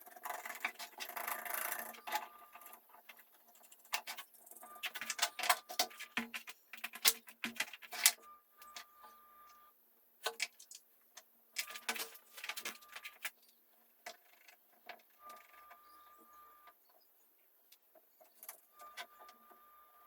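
Intermittent workshop clatter of tools and parts being handled, in clusters of clicks and knocks, with several short runs of a small power tool's motor.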